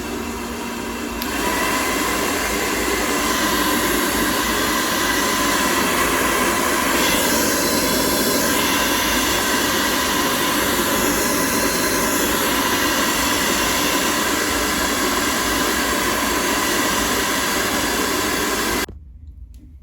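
Hand-held hair dryer blowing steadily, with a faint motor whine, as the glued wig lace is dried to make it hold. It grows louder about a second in and switches off abruptly near the end.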